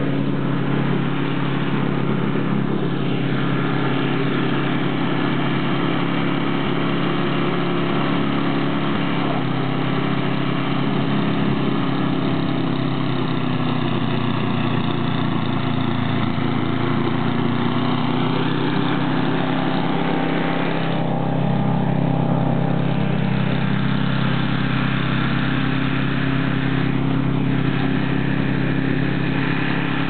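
An engine running steadily with a constant hum, growing a little louder and deeper about two-thirds of the way through.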